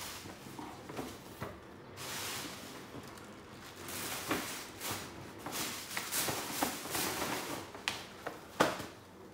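Tissue paper rustling and crinkling as a gift is unwrapped, with a run of short crackles and one sharper crackle near the end.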